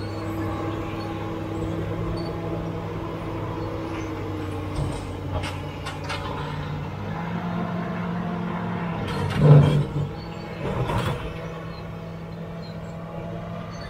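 Caterpillar D7G crawler bulldozer's six-cylinder diesel engine running under load as it pushes dirt with its lowered blade. A few short knocks come near the middle, and about two-thirds of the way through there is a short loud burst of clattering, followed by a smaller one.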